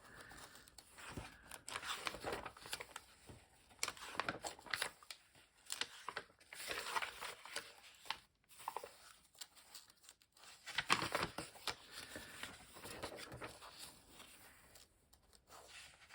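Catalog pages rustling and tearing in short, irregular bursts as pictures are pulled out of them.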